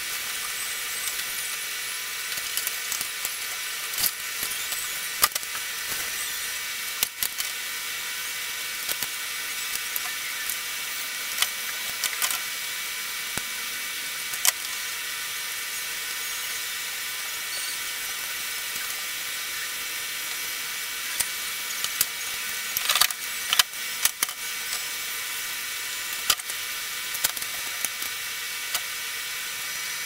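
Washing-machine wire harness being handled by hand while its electrical tape is stripped off: scattered small clicks and rustles, with a denser run of them about three-quarters of the way through, over a steady background hiss.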